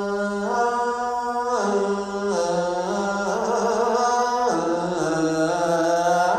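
A monk's solo male voice chanting an Isan-style melodic sermon (thet lae), holding long drawn-out vowels that step and slide between a few pitches, dropping lower about halfway through and rising again near the end.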